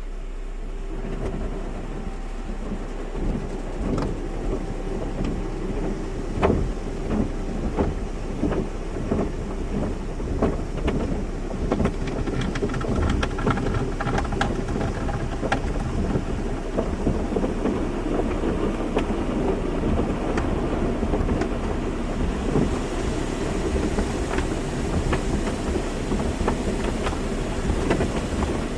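Car wash running: water spray pattering and drumming on a car over a steady machine hum. The spray turns hissier about two-thirds of the way through.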